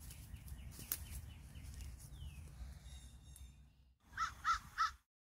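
Birds calling over a low steady rumble, with a few thin chirps, then three quick calls in a row about four seconds in. The sound then cuts off suddenly.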